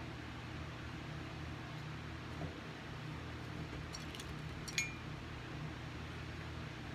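Steady low mechanical hum in a small room, with a few faint small clicks about four seconds in and one sharper click with a brief ring just before five seconds.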